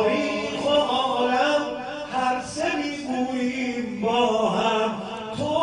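A man's voice chanting a Persian mourning elegy through a microphone, in long drawn-out phrases, each held for about a second and bending slowly in pitch.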